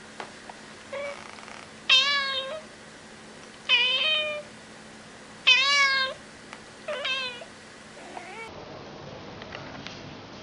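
Cat meowing repeatedly: three loud meows about two seconds apart, with a few fainter meows between them, then a quieter stretch after a cut about eight seconds in.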